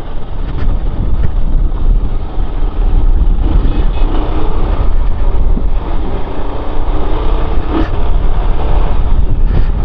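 Motorcycle engine running while riding, with heavy wind rumble on the microphone.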